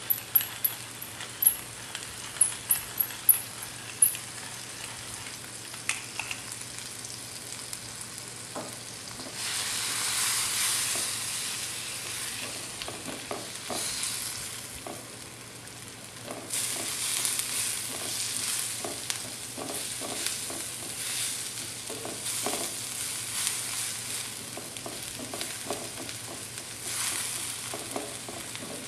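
Shrimp sizzling in olive oil in a frying pan while being stirred and turned with a utensil, the sizzle swelling louder several times. A row of sharp clicks comes in the first few seconds.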